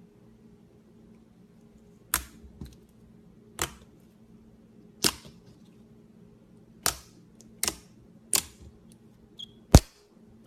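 Toy slime being pressed and worked, giving about eight sharp pops of trapped air at irregular intervals, the loudest near the end.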